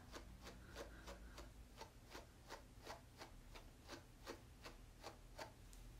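A grooming brush drawn again and again through a poodle's curly, matted coat to pull out dead hair: faint, short, even strokes about three a second.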